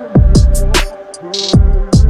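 Background music with an electronic hip-hop beat: deep kick drums that drop in pitch, a clap and hi-hat ticks over a held synth tone.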